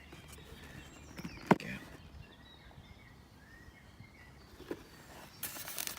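A cardboard box being opened by hand. There is one sharp click about a second and a half in and a fainter tap later, then a rustling scrape of polystyrene packing near the end.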